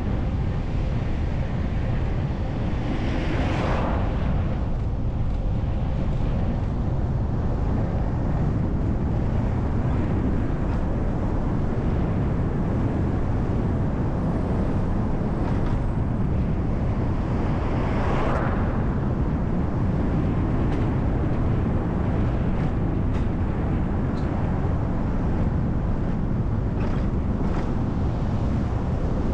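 City bus driving along a road: a steady low rumble of engine and tyres, with two brief swells of higher noise about three seconds in and again near eighteen seconds.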